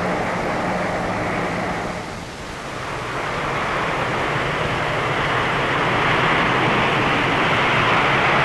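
Lockheed Hercules's four Allison T56 turboprop engines running at takeoff power: a steady drone with a low propeller hum. It dips briefly about two seconds in, then grows steadily louder.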